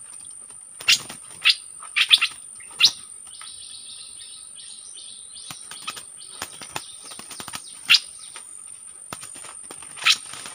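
Bulbul giving short, sharp calls: a quick run of them in the first three seconds, a softer warbled phrase just after, then single calls near the end. A steady high insect drone runs underneath, with faint ticks between the calls.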